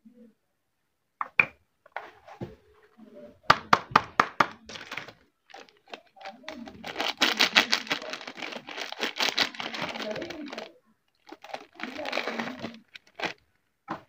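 Plastic soap wrapper being handled and torn open: a run of sharp taps and clicks, then a long stretch of crinkling about halfway through and a shorter one near the end.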